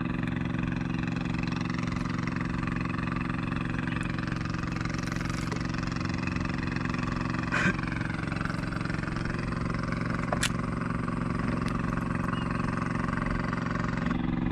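Small engine running steadily at a constant speed, with an even hum that does not rise or fall, and a couple of brief clicks.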